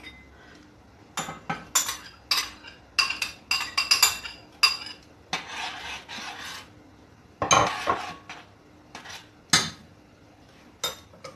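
A metal spoon clinking and scraping against a stainless steel saucepan as garlic is stirred into tomato sauce: a run of quick taps, a longer scrape around the middle, and a louder clank about two-thirds of the way through.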